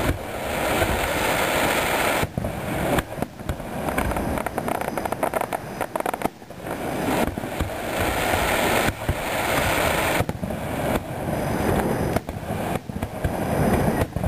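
Aerial fireworks bursting and crackling in a near-continuous barrage, broken by a few short lulls.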